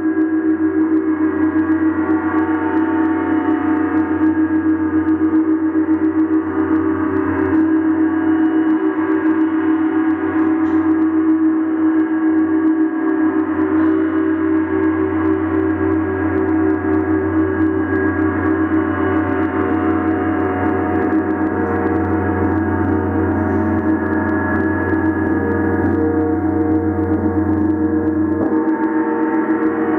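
Large planetary gong tuned to Jupiter, played continuously: a steady, dense wash of many ringing overtones that never dies away, its tone colour shifting a little near the end.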